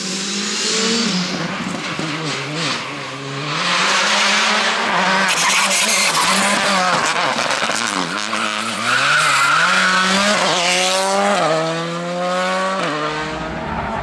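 R5 rally cars' turbocharged four-cylinder engines at full attack, revving up and down through corners. Near the end one car accelerates hard through several quick upshifts.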